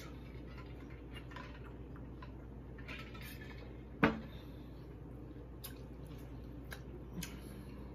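A sharp knock about four seconds in, as an insulated water bottle is set down on a glass tabletop, amid faint handling and eating sounds; soft crackles near the end as a crispy cheese taco shell is picked up.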